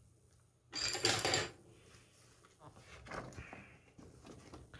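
Paper rustling for about a second as a large printed magazine is closed and moved off a work mat, followed by softer handling sounds.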